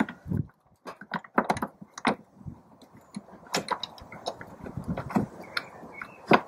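Irregular small clicks, taps and light knocks of hands fitting a clutch master cylinder and its rubber gasket into place, metal and plastic parts shifting against each other.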